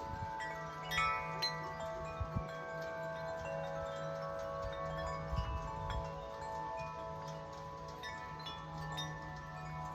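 Large Corinthian Bells 50-inch wind chime ringing in gusty wind, its tubes struck again and again so that the long tones overlap and hang on. Wind buffets the microphone at the start and again around five seconds in.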